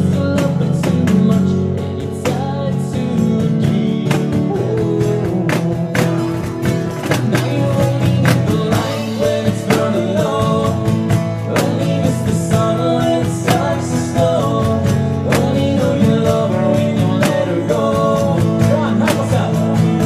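Music: a guitar strummed in a steady rhythm.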